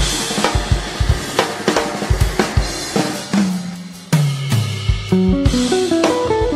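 Background music: a drum kit beat with bass drum and snare over a bass line, and melody notes joining about four seconds in.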